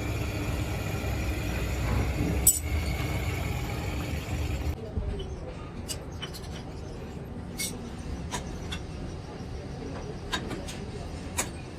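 A steady low mechanical hum with a sharp click about two and a half seconds in. The hum stops abruptly a little before the halfway point, leaving scattered light metallic clinks of metal parts being handled.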